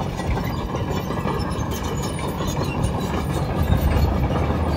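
Komatsu PC210LC-10 hydraulic excavator travelling on its steel crawler tracks, its diesel engine running with a steady low rumble.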